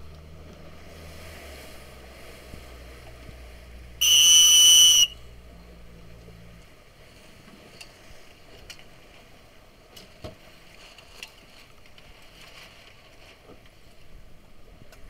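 A single loud, steady whistle blast about a second long, about four seconds in: the coach's signal for the Snipe dinghies to jibe. Under it run wind and water noise and a low engine drone that stops a few seconds after the whistle.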